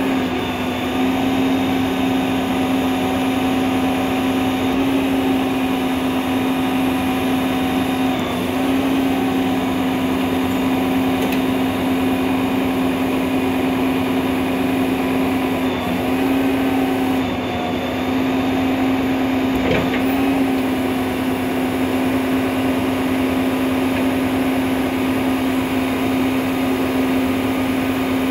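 Skip loader truck's engine running at a steady raised idle to drive the hydraulic pump for the loader arms, a constant hum with small shifts in pitch as the arms are worked. A single metallic clank about twenty seconds in.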